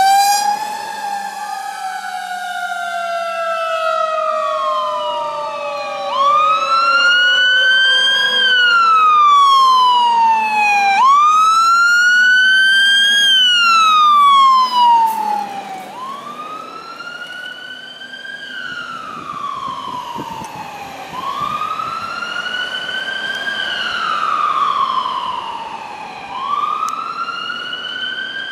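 Fire truck sirens wailing as the trucks drive past. One siren winds down over the first few seconds, then wails repeat about every five seconds, each rising quickly and falling slowly. The sirens are loud at first and somewhat quieter after the middle.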